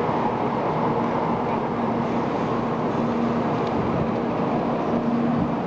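Steady rumbling noise of a 700 series Shinkansen train pulling out of the station, with a low hum that comes and goes.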